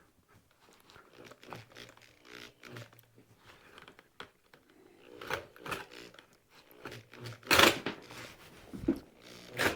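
Handling noises as a large bit is fitted into a drill: light rustling and knocks, then several short, sharper bursts of noise in the last few seconds.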